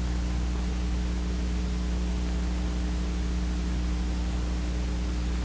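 Steady low hum with an even hiss over it, the background noise of an old film soundtrack; nothing else sounds.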